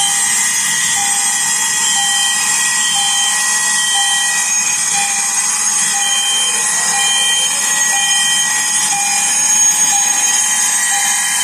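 Several fire alarm sounders going off together: a loud, dense mix of alarm tones, with a low tone pulsing about once a second over higher tones switching on and off.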